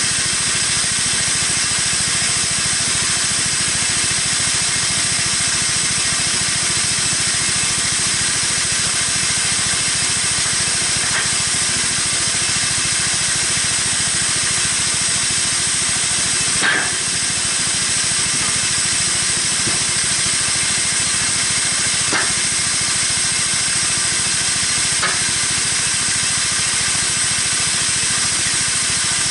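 Homemade band sawmill running steadily as it saws through a wood beam: a constant motor drone under a strong hiss from the blade. A few faint ticks, the plainest a little past halfway.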